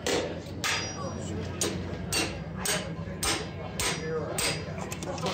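Blacksmith's hammer striking red-hot sheet metal held in tongs on an anvil, in a steady rhythm of about two blows a second, over a steady low hum.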